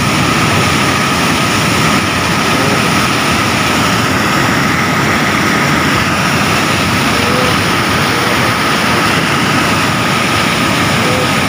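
Swollen floodwater rushing over a concrete river weir and churning into white water below, a loud, steady rush.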